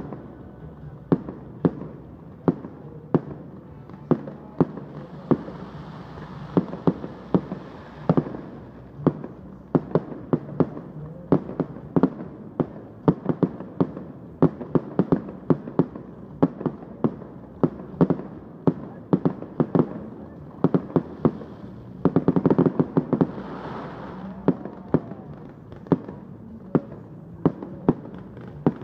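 Fireworks display: a rapid, irregular string of sharp bangs from bursting shells. A hissing crackle builds around six seconds in, and there is a dense crackling flurry about three quarters of the way through.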